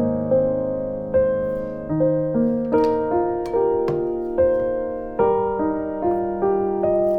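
Background piano music: a calm, slow melody of single notes and chords, each struck and left to ring and fade.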